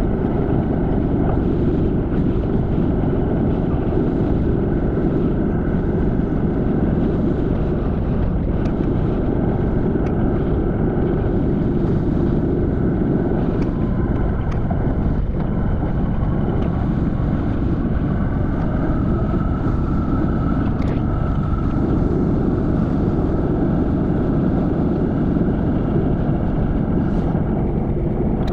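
Wind buffeting the microphone of a bike-mounted action camera riding at about 30 km/h: a steady, loud, low rushing.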